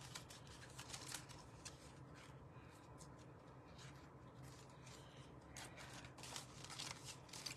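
Faint rustling and light ticks of small die-cut cardstock pieces being handled, over a low steady hum.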